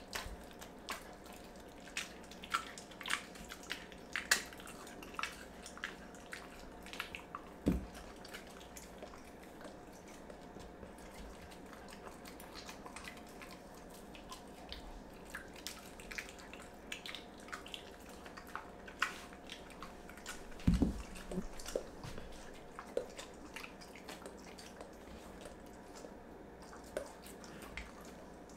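A dog chewing raw meat: scattered wet smacking and clicking from its mouth, with two dull thumps, about eight seconds in and about twenty-one seconds in.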